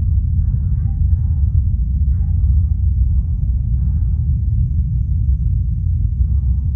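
Deep, steady rumble of a SpaceX rocket launch heard from a distance.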